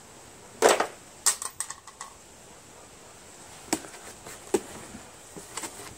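A cardboard box being opened by hand: a short loud ripping sound a little under a second in, then a quick run of small crackles and clicks, and a few separate sharp taps and clicks of cardboard and packing.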